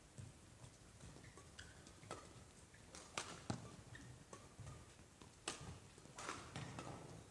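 Shuttlecock being hit back and forth in a doubles badminton rally: sharp racket strikes at irregular intervals about a second apart, with short squeaks of court shoes in between.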